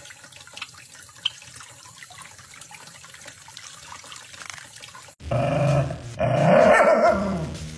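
A thin stream of tap water running faintly, then from about five seconds in a dog barking loudly.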